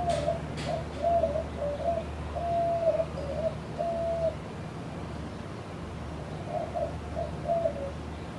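A bird calling in two runs of short, wavering mid-pitched notes, with a pause of about two seconds between them. Underneath is the steady low hum of a running ceiling fan's motor.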